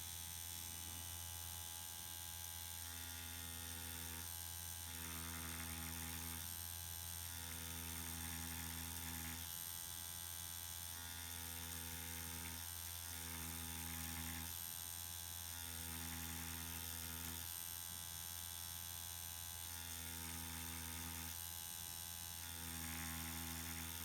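Permanent-makeup machine pen buzzing in short spells of a second or two as hair strokes are drawn, over a steady electrical hum.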